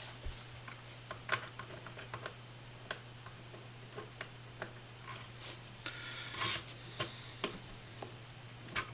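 Scattered light clicks and taps of small plastic and metal RC truck parts being handled and fitted at the front axle and wheel, with a short scratchy rustle a little past the middle, over a low steady hum.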